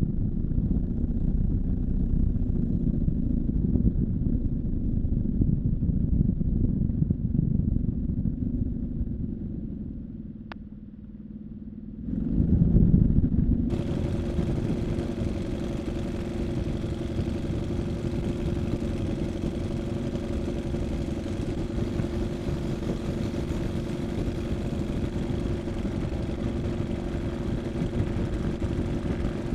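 Engine and propeller of a Minimax 1100r ultralight running at low taxi power. The sound dips about ten seconds in and comes back up, and from about fourteen seconds it changes abruptly to a steadier idle hum with more hiss.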